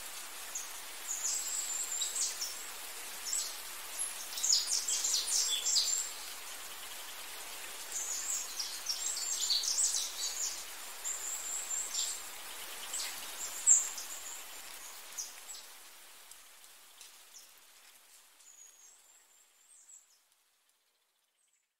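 Nature ambience: birds chirping and trilling over a steady hiss. It fades out over the last few seconds and goes silent just before the end.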